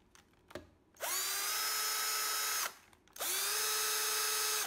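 Bosch GSR 14.4-2 cordless drill's motor run twice, each time spinning up quickly to a steady whine and stopping after about a second and a half, with a short pause between. The drill is running on a replacement 16.8 V pack of four 18650 lithium-ion cells in series.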